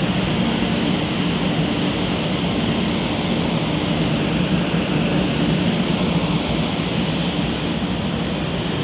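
Steady station platform noise with a low hum beside a stopped 500 Series shinkansen standing with its doors open.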